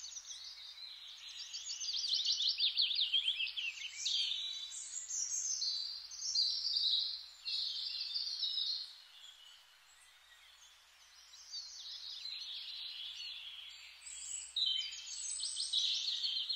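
Birds singing: quick, high chirps and trills in rapid runs of repeated notes, thinning out for a couple of seconds midway and then resuming.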